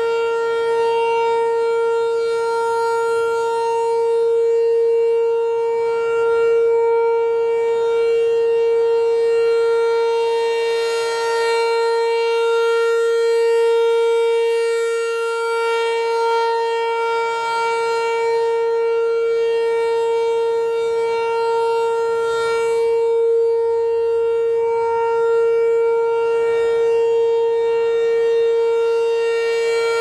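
ASC T-128 rotating outdoor warning siren sounding a steady, unbroken tone at one pitch, its loudness swelling and fading gently as the horn turns toward and away.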